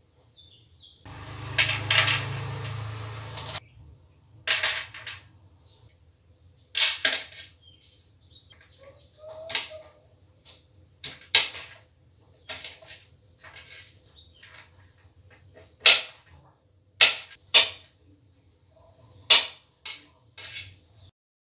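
Kitchen knife chopping almonds, cashews and pistachios on a stainless steel plate: sharp, irregular clicks of the blade striking the metal. About a second in there is a longer scraping noise lasting a couple of seconds.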